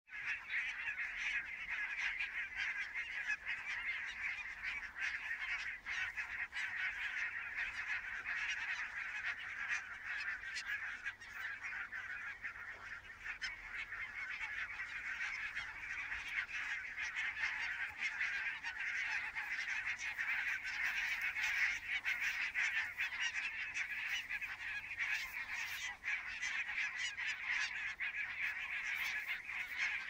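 A large flock of geese honking without pause, a dense chorus of many overlapping calls.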